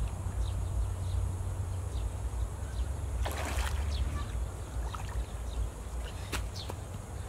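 Shallow canal water sloshing and splashing as rocks are pulled by hand from a stone blockage, with a bigger splash about three seconds in and a sharp knock near the end as a rock is tossed aside. A steady low rumble runs underneath.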